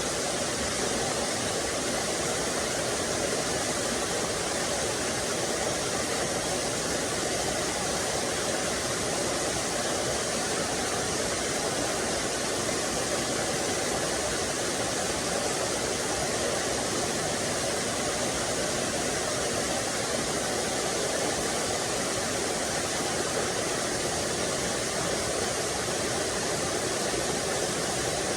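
Small waterfall and stream splashing and rushing over rocks, a steady even rush of water.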